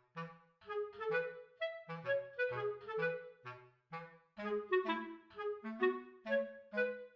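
Background music: a light, bouncy tune of short, separate notes over a bass line.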